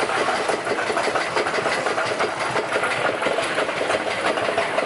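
Primeval Whirl spinning wild-mouse roller coaster car running along its steel track, a steady fast clatter and rattle of wheels on rail.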